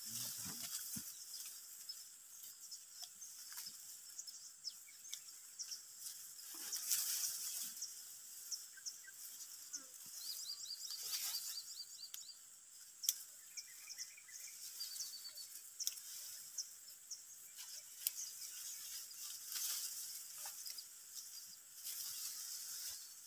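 Dry hill-rice stalks rustling and snapping softly as the ripe panicles are gathered and cut off by hand, in several short bursts. A steady high insect drone runs beneath, with a few short bird chirp series.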